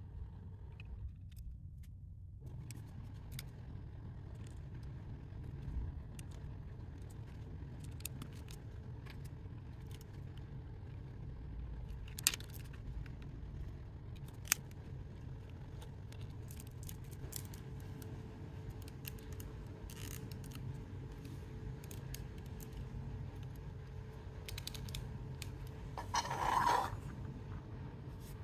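Small plastic pieces of a 3D crystal jigsaw puzzle clicking and snapping together as they are pressed on by hand, with scattered light clicks and two sharper snaps midway. A brief louder scrape near the end.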